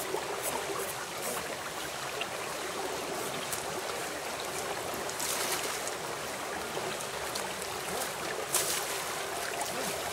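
A shallow river flowing steadily, with splashes as water is scooped and thrown over a bathing elephant, a longer one about five seconds in and a sharper, louder one about eight and a half seconds in.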